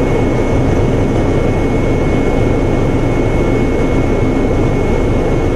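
Helicopter cabin noise in flight: a loud, steady drone of engines and rotor with a thin, steady high whine running through it.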